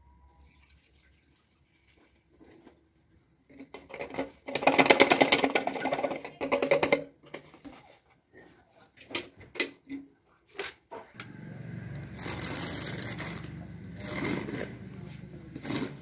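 Fuel poured from a plastic bottle into a motorcycle's metal fuel tank, gurgling in a fast stream of pulses for about three seconds, followed by a few sharp clicks of caps being handled. A steady rushing noise sets in near the end.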